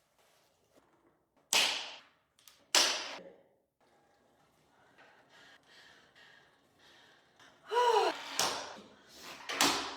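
A woman coughs twice, hard, about a second apart. Near the end she makes a short voiced sound that falls in pitch.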